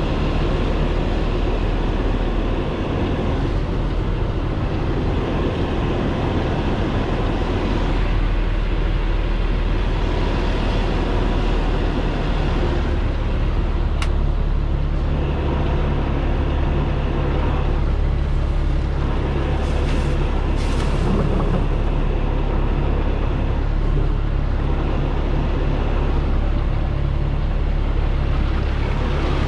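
Heavy tow truck's diesel engine running steadily at low revs while the truck reverses slowly, heard from inside the cab. A sharp click about halfway through and two short hisses a few seconds later.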